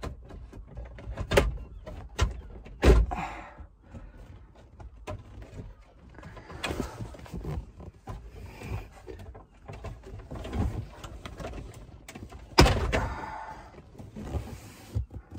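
Plastic dashboard trim cover under the glovebox of a VW Transporter T5 being pulled loose by hand: plastic rubbing and rattling, with several sharp clicks and knocks and a loud snap near the end as the cover comes free.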